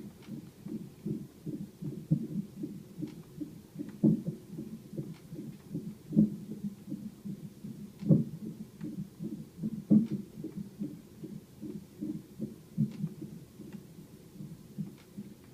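Fetal heart monitor's Doppler speaker playing an unborn baby's fast heartbeat as a rapid pulsing, broken by loud thumps about two seconds apart as the baby's hiccups knock against the monitor's transducer.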